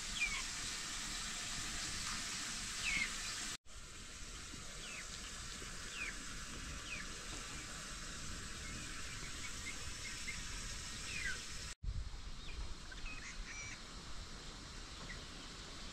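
Outdoor ambience: scattered short bird chirps over a steady background hiss, broken off abruptly twice.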